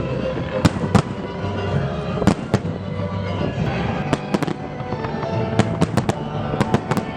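Fireworks going off: about a dozen sharp bangs and cracks at irregular intervals, bunched more closely in the second half, over background music.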